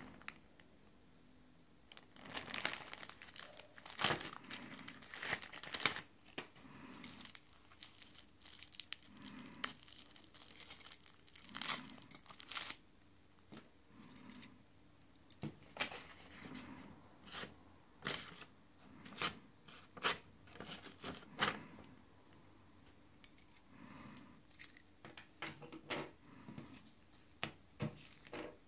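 Crinkling and rustling of a small plastic zip-lock bag being opened and handled, with irregular light clicks as a small metal knife and its carabiner clip are handled.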